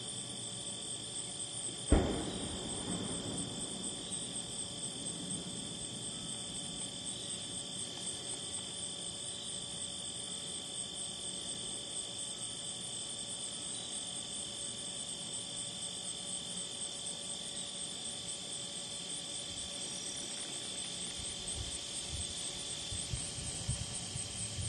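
Steady late-summer chorus of crickets and other insects trilling, with a single sudden loud thump about two seconds in. Faint low rumbling creeps in near the end.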